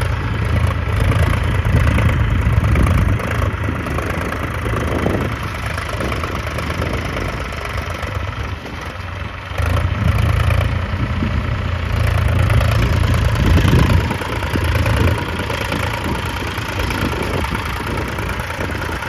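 Farm tractor diesel engine running steadily, its level swelling and easing, louder at the start and again for a few seconds past the middle.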